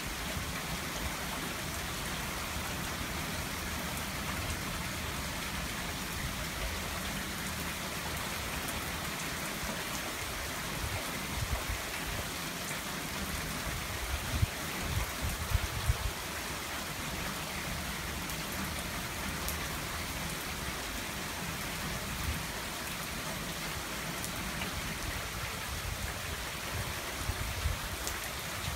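Steady rain from a squall-line thunderstorm pouring down and splashing on the porch, sidewalk and plants. A few brief low thumps stand out near the middle and again near the end.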